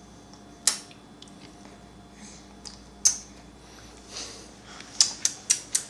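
Sharp, wet clicks and smacks of a baby biting and mouthing a feeding spoon: single clicks about a second in and about three seconds in, then a quick run of four or five near the end.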